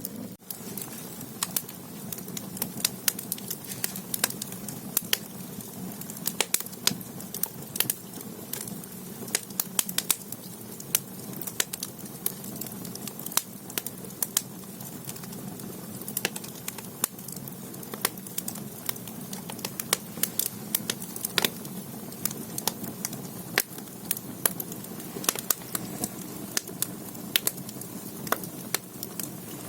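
Firewood burning in an agungi, the wood-fired stoke-hole of a Korean clay ondol (gudeul) floor: a steady low rush from the fire with frequent sharp, irregular crackles and pops from the logs.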